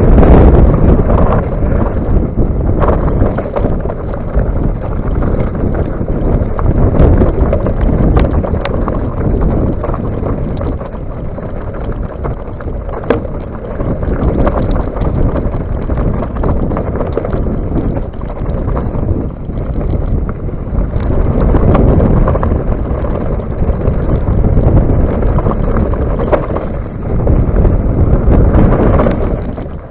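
Mountain bike descending a rocky, gravelly trail at speed: wind buffeting the microphone over a steady rumble of tyres on loose stones, with frequent clicks and knocks as the bike rattles over the rocks.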